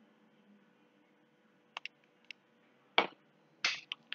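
Computer mouse clicking: a few faint, scattered clicks, then two louder ones about three seconds in and again about half a second later.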